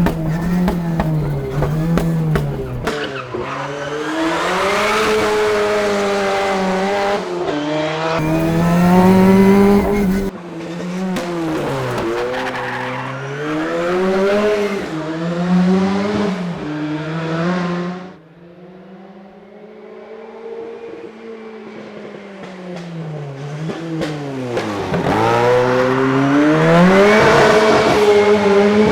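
1987 Ford Sierra RS Cosworth Group A race car's turbocharged four-cylinder engine driven hard, its pitch climbing and dropping again and again through the gears. It falls much quieter a little after halfway, then builds back to loud near the end.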